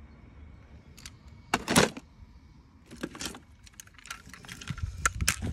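Plastic ball-pit balls and toy trains clattering as a hand rummages through them: scattered clicks and short rattles, loudest a little under two seconds in.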